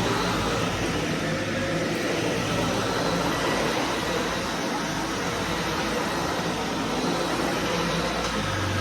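Vacuum cleaner running steadily.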